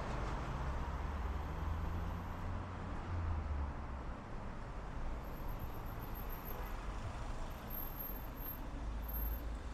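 Outdoor street ambience: a steady low rumble of road traffic, with no single event standing out.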